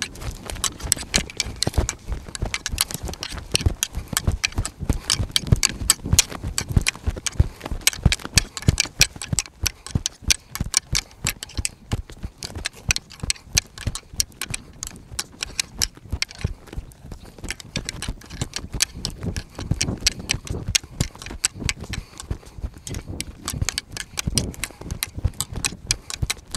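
Rapid, irregular clatter of hoofbeats, like a herd of hoofed animals running, with many sharp knocks a second that go on throughout.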